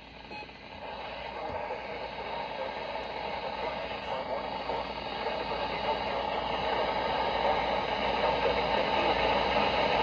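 Static hiss from a weather radio's speaker on the weather band, growing steadily louder.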